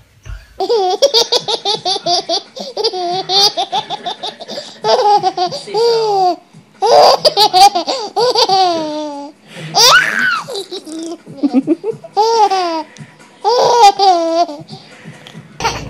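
Baby laughing hard: several long fits of rapid, rising and falling giggles, with short breaks between them.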